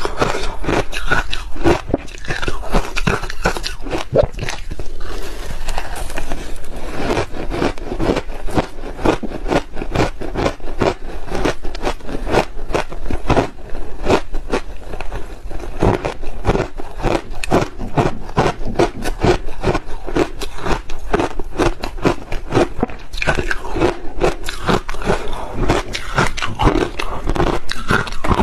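Crushed ice crunching in dense, continuous crackles as big mouthfuls are bitten and chewed, close to a clip-on microphone, with a metal spoon scraping and scooping through the ice.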